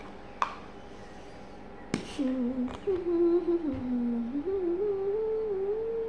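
A person humming a slow, wandering tune that begins about two seconds in, holding notes and stepping between them. Before it, two sharp knocks, like plastic tapped on a hard tabletop.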